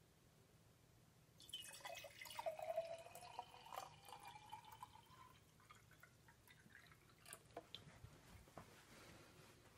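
Water poured into a glass jar for about four seconds, starting about a second and a half in, with a tone that rises in pitch as the jar fills. A few separate drips follow.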